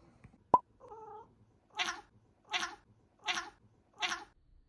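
A long-haired cat sneezing four times in a row, each short and about two-thirds of a second apart. A sharp click comes first, about half a second in.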